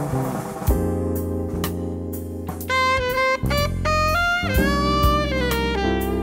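Background music with a steady bass and drum beat; a melody line with sliding notes comes in about halfway through.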